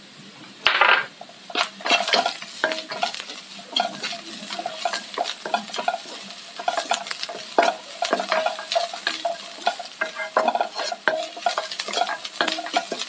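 Wooden spatula stirring and scraping sliced onions and cashew nuts around a nonstick pan, with many quick clicks and scrapes over the steady sizzle of hot coconut oil. The stirring starts about a second in; the onions are sautéing and the cashews roasting.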